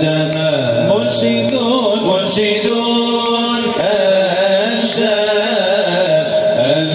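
A man's voice chanting an Islamic nasheed in a melismatic Middle Eastern style, with long held notes that bend in pitch.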